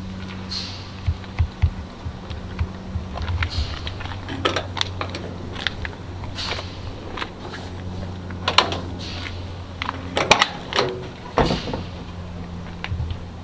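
A steady low hum, with scattered short clicks and light knocks throughout.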